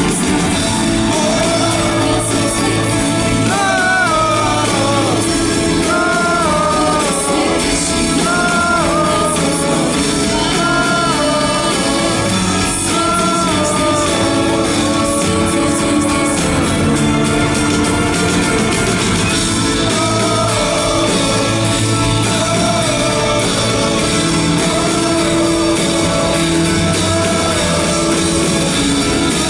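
Live band playing in a large arena with the audience singing the melody along, the crowd's voices echoing through the hall.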